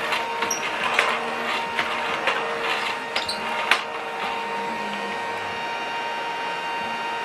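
Children's toy vacuum cleaner running, its small motor giving a steady whine, with light clicks and knocks of plastic over the first few seconds before it settles into an even run.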